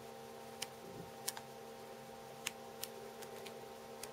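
Thick patterned cardstock sheets in a paper pack being leafed through, giving a few light, sharp clicks as the sheets flick past, over a faint steady hum.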